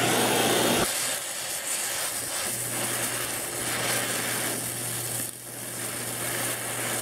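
Oxy-acetylene welding torch flame hissing steadily while filler rod is fed into the weld puddle, louder for about the first second and then lower and even.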